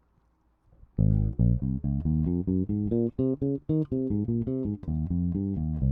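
Alien Audio Constellation four-string electric bass, recorded direct with no effects, playing a quick run of plucked notes that starts about a second in. It is set with the bass rolled down a little, a touch of mids added and the tone knob rolled back.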